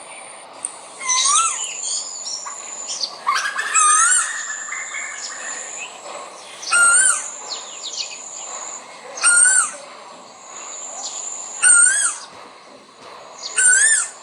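Male koel calling: six short, loud calls repeated about every two and a half seconds. Fainter chirps and high whistles run underneath.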